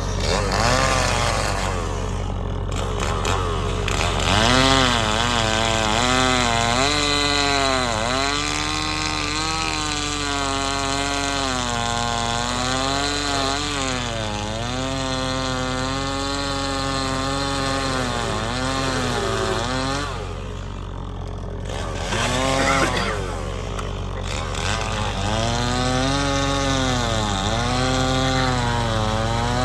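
Stihl chainsaw cutting through a pine log, its engine pitch sagging under load in the cut and rising again over and over. It eases off briefly about two-thirds through, then revs back in. A steady low engine hum runs beneath it.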